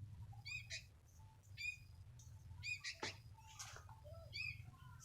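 Sooty-headed bulbul (kutilang) calling: short ringing chirps repeated about once a second, with sharper call notes in between, over a steady low hum.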